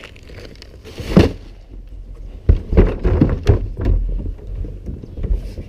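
Empty plastic wheeled garbage cart being handled: a sharp thump about a second in, then a cluster of hollow knocks and thumps, over a low rumble.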